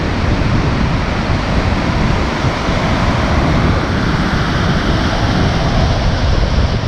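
Rough sea surf breaking and washing over a rocky shore, a steady wash of noise with no single standout crash, with wind buffeting the microphone.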